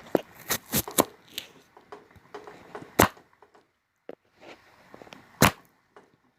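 Sharp, irregular clicks and taps, several in the first second, then two louder single knocks about three and five and a half seconds in.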